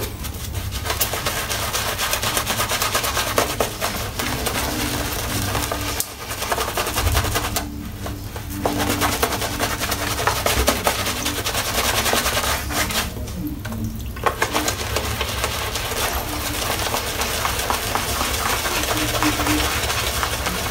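Boar-bristle shaving brush scrubbing lather over a bearded face: a continuous crackly, bristly brushing, broken by two short pauses, about eight and thirteen seconds in.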